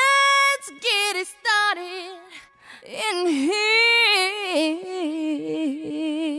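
A woman singing alone with no accompaniment: a held note at the start, a few short notes, then long sustained notes with vibrato.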